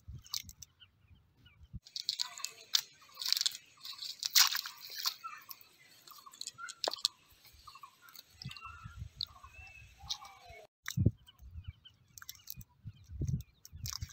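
A wet nylon cast net with lead sinkers crunching and crackling as hands pick through it, with scattered clicks. Low dull thumps come in over the second half.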